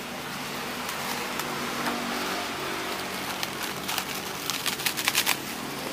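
Steady roadside traffic noise with a low hum, and a quick run of sharp crackling clicks about four and a half seconds in.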